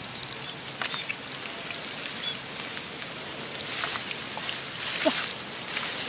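Hands squelching and sloshing through shallow wet mud, with many small wet clicks and drips, growing louder over the last couple of seconds.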